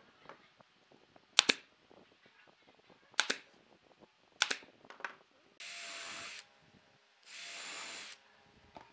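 A nail gun fires three times, each a sharp crack, about a second and a half apart, fastening the wooden cylinder to the base. Then a cordless drill runs twice for under a second each, with a steady whine, drilling holes in the wood.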